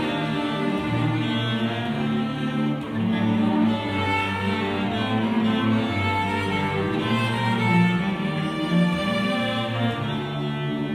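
A student cello ensemble playing in several parts: bowed cellos with sustained low notes under moving upper lines.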